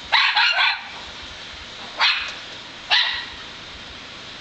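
A dog barking: a quick run of about three barks, then two single barks about a second apart.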